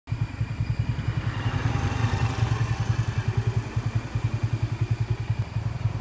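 Motorcycle engine idling close by, a steady low putter with rapid even pulses.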